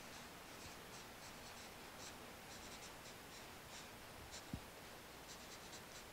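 Felt-tip marker writing on a flip-chart pad: faint, short pen strokes in quick clusters, with one low thump about four and a half seconds in.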